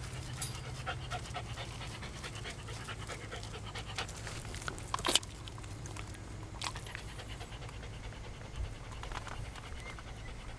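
A dog panting steadily in the heat, with a sharp click about halfway through.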